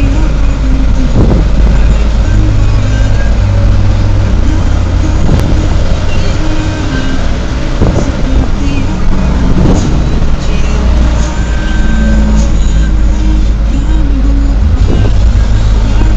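Mitsubishi Canter light truck's diesel engine running with road noise, heard from inside the cab as the truck moves slowly. There is a steady low rumble, with a few short thuds and held tones over it.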